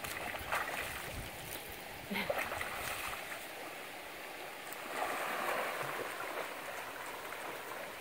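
Creek water running and splashing in a steady rush, a little fuller about halfway through.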